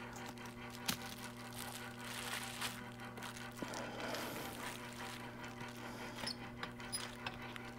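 Quiet handling noises as a display circuit board and screen are fitted together on bubble wrap: faint plastic crinkles and a few small clicks, over a steady low hum.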